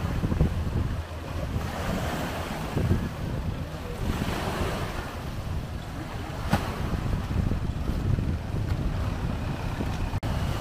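Wind rumbling on the microphone over the wash of shallow sea water against a seawall, with a single brief click a little past the middle.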